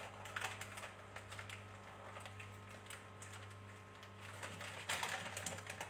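Faint scattered clicks and light rustling of hands rolling and tucking a sushi roll on a board, over a steady low hum.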